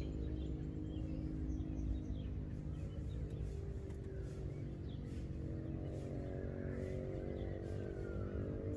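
Mitsubishi Lancer Evolution X's turbocharged four-cylinder idling steadily, with a few faint bird chirps.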